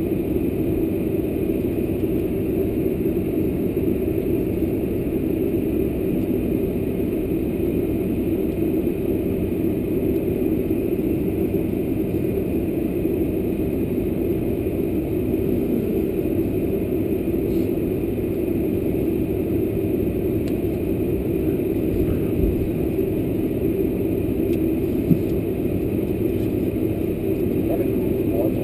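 Steady cabin rumble of a Boeing 747-400 taxiing, its General Electric CF6 engines at idle thrust heard through the fuselage from a window seat over the wing, with a faint steady whine above it. One short click near the end.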